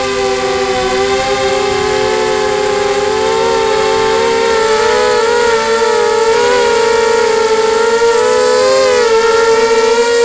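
Whine of a QAV250 quadcopter's four 2204 2300Kv brushless motors spinning 5x3 propellers, picked up by the camera mounted on the frame. Several close tones waver and cross one another, spreading apart more from about halfway through.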